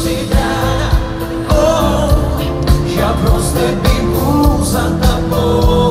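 Live pop music at a concert: singing over a band, with a steady beat of about two thumps a second.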